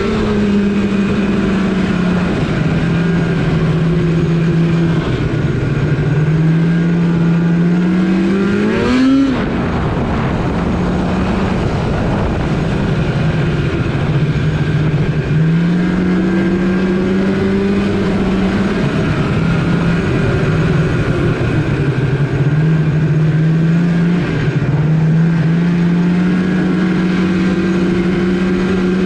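Snowmobile engine running under way, its pitch rising and falling with the throttle over several seconds at a time, with a sharp rev peaking about nine seconds in.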